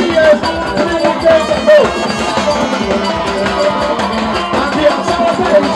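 A marching band of trumpets and drums playing, with the bass and snare drums keeping a dense, steady beat under the horn line.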